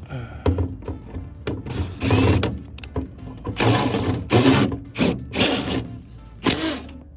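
A cordless power driver runs in about five short bursts, a second or less each, driving screws into the sheet-metal panels of an HVAC package unit. Background music plays under it.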